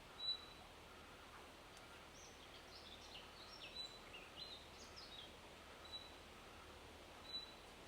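Faint woodland birdsong: a short high call note repeats every second or so, and a quick burst of varied twittering notes comes in the middle, over a soft background hiss.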